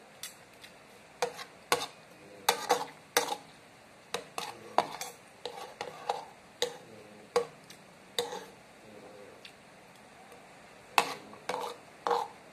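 Metal spoon and fork clinking and scraping against a ceramic bowl in a quick series of sharp clicks. The clicks pause for a couple of seconds before a last cluster near the end.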